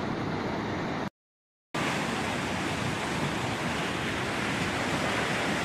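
Muddy floodwater rushing in a fast, turbulent torrent: a steady, even roar of water, broken by a brief dead silence about a second in where two clips are joined.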